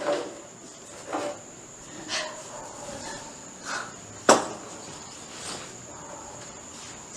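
A series of about six sharp knocks at uneven intervals, the loudest about four seconds in, over a steady high-pitched hum.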